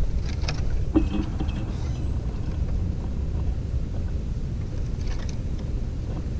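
Steady low rumble of outdoor background noise, with a few faint brief ticks and a short sound about a second in.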